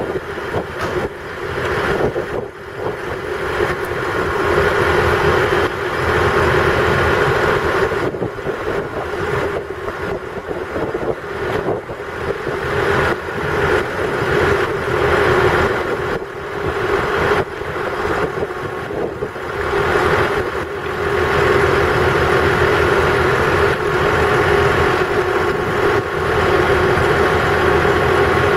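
Engines of a line of armoured military patrol vehicles idling: a steady, continuous hum that swells and dips a little.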